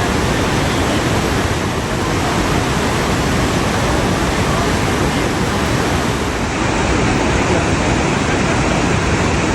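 Iguaçu Falls: a large waterfall rushing, a loud, steady noise of falling water.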